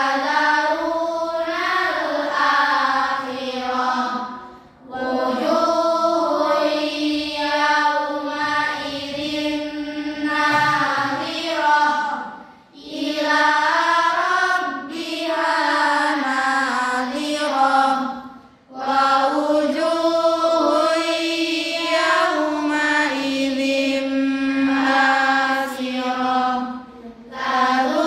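A group of girls reciting the Qur'an aloud in unison: chanted recitation in long phrases, broken by short pauses for breath about every six to eight seconds.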